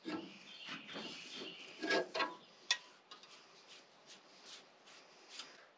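Faint handling noises in a diesel truck's engine bay: light scrapes, rustles and scattered clicks as hands work around the engine, with one sharp metallic click about halfway through.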